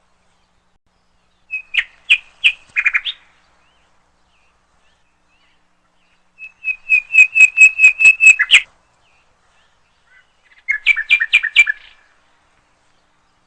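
Woodpecker calling in three bursts of rapid, repeated harsh notes. The longest burst comes in the middle and ends abruptly.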